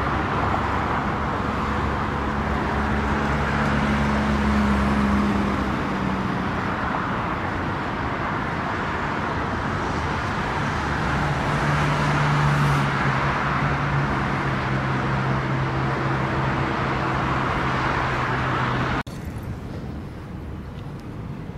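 Alstom Citadis 403 tram passing close by through a curve: steady rolling noise with the low hum of its traction motors slowly shifting in pitch. It cuts off suddenly near the end to a quieter street background.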